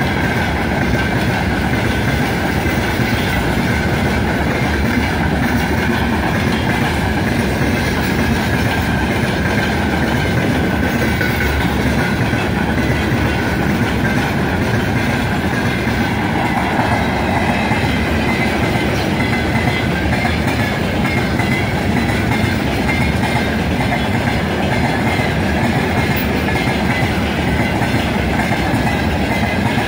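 Freight train of open gondola wagons rolling past close by: a steady, loud rumble of steel wheels on rail with clattering over the rail joints.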